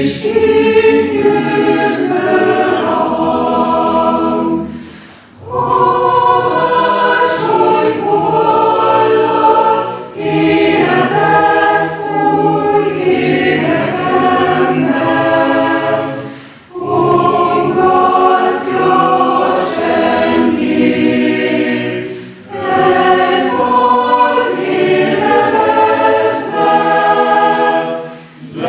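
Chamber choir singing in several voice parts, in phrases of about five or six seconds separated by short breaks.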